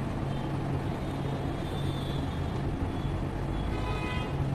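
Steady background noise with a constant low hum, without any distinct event.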